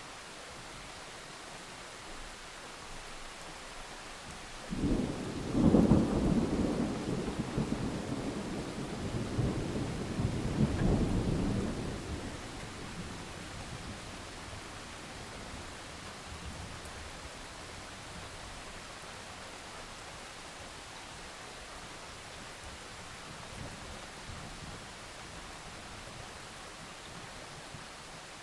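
Steady rain with a rolling peal of thunder that breaks suddenly about five seconds in, swells again around ten seconds and rumbles away by about thirteen seconds.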